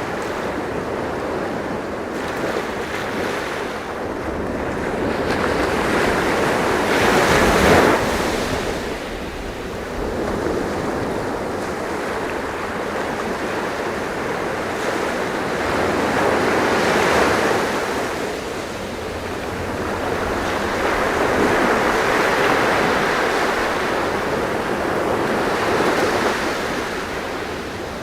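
Sea waves breaking and washing on a shore, the surf swelling and easing every several seconds, with the loudest wave about seven to eight seconds in.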